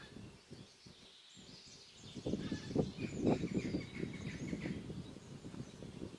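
Birds chirping outdoors over an uneven low rumble that grows louder about two seconds in.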